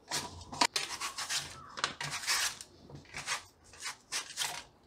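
Raw peeled potato being slid back and forth across a handheld steel potato-wafer slicer, each pass a short scraping stroke as a slice is cut, about two strokes a second.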